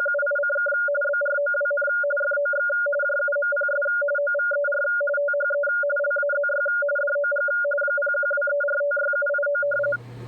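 Radioteletype (RTTY) frequency-shift keyed audio: a low and a higher tone switching back and forth rapidly in an even, loud stream of data. It cuts off abruptly near the end, leaving a quieter steady hum.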